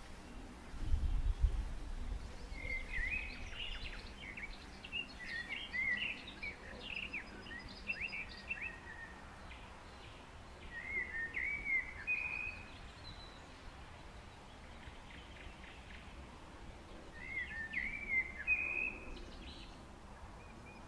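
Songbirds singing in quick, chirpy warbling phrases, in three bouts with pauses between them, over a faint steady outdoor hiss. A low rumble about a second in is the loudest part.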